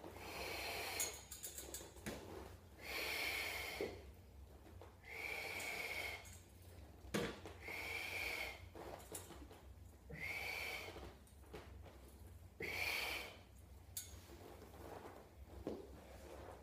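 A man breathing hard from physical exertion: six loud breaths, about one every two seconds, with a few light knocks in between.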